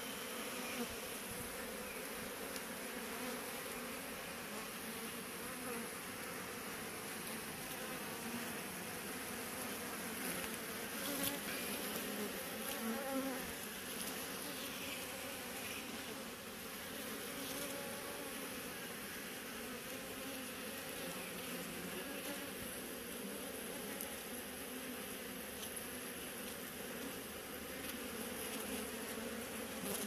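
A mass of honeybees buzzing close by: a steady, unbroken hum of many wingbeats.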